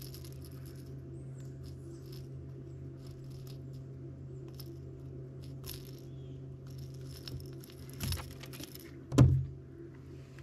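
Light metallic clicking and rattling of fishing tackle being handled on a bass boat's deck over a steady low hum. A knock comes about eight seconds in, then a sharp, loud thump on the deck a second later.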